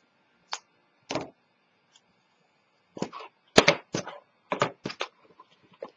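Scattered taps and knocks of a chipboard box lid and small paper strips being handled and set down on a cutting mat. There is one tap, then a short cluster, then a busy run of taps and clacks through the second half.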